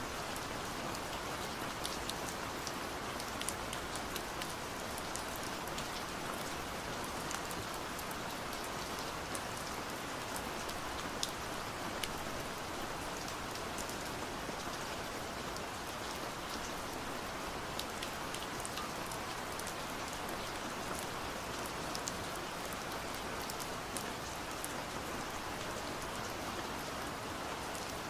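Steady rain with individual drops ticking and pattering on a hard surface.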